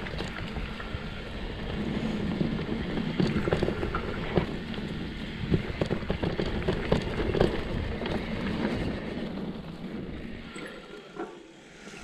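Mountain bike descending a dirt downhill track: steady tyre and trail rumble with wind on the microphone, broken by many sharp clacks and rattles from the bike over bumps. It goes quieter for about a second near the end.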